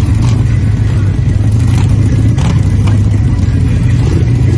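Harley-Davidson motorcycle engine running steadily with a deep, even low drone.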